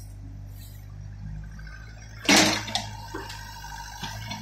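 Hitachi mini excavator at work, its diesel engine running steadily, with a loud, sharp clatter about two seconds in as the bucket works the manure.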